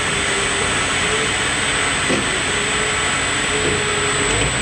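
Grizzly DF-1237G gap-bed metal lathe running on a VFD, its tool bit taking a turning cut on a spinning metal workpiece: a steady machine noise with a thin, high, steady whine and a faint wavering hum.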